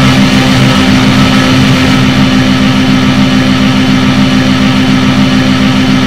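Racing kart engine running hard at high revs, heard loud and close from an onboard camera, its pitch holding steady.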